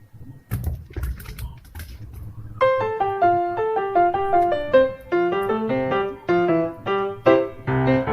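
Background piano music playing a melody of quick, separate notes, starting about two and a half seconds in. Before it, scattered clicks and low rustling.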